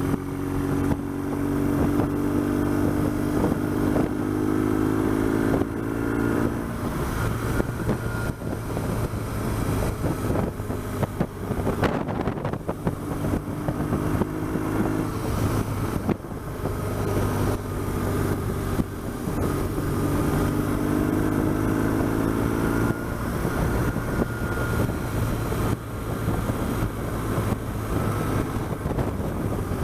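BMW R1200GS boxer-twin engine running as the bike is ridden, its pitch climbing several times as it accelerates, with wind and road noise rushing past.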